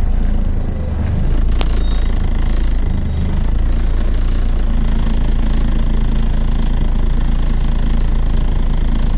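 Volvo B7TL double-decker bus's six-cylinder diesel engine heard from inside the bus, varying over the first few seconds and then settling into a steady idle about halfway through. A single sharp click comes about a second and a half in.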